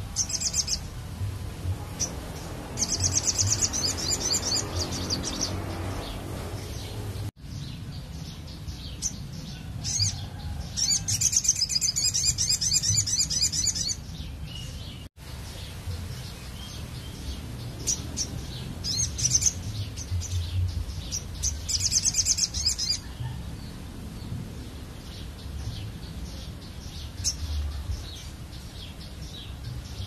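A caged brown-throated sunbird (sogon) singing vigorously: several high, fast buzzy trills, each lasting one to four seconds, with single sharp chirps in between.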